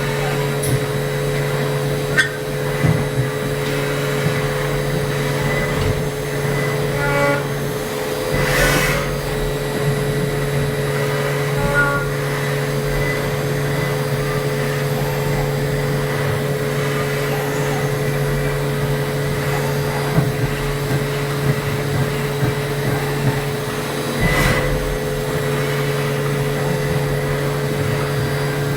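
Milling machine running with a steady hum that holds a constant pitch, with a few light clicks and two brief louder rushes of noise, one about nine seconds in and one near the end.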